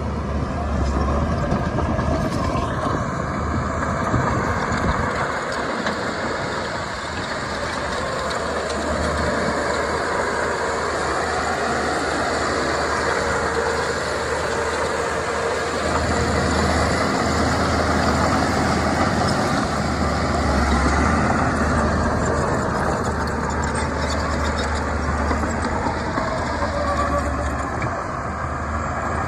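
Diesel engines of heavy earthmoving machinery, a bulldozer and dump trucks, running steadily under load, their low hum swelling and easing.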